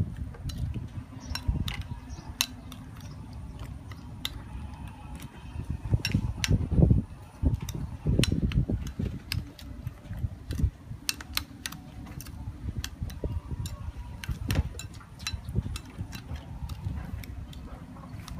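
Metal spoon clicking and scraping against a ceramic bowl while stirring a thick paste, with many irregular sharp clicks over a low, steady rumble.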